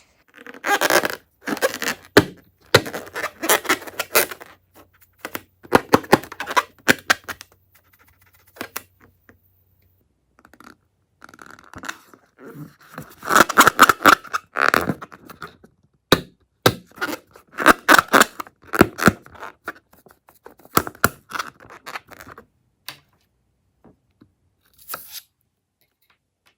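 Hands working slime and balloons: several bursts of crackling, squishing and scraping, a few seconds each, separated by short pauses.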